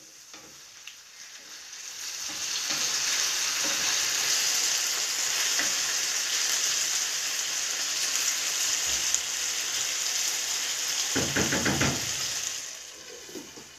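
Potato strips frying in oil in a pan, a steady sizzle that swells about two seconds in as they are stirred with a wooden spatula. Near the end there is a brief clatter as a glass lid is put on, and the sizzle dies down.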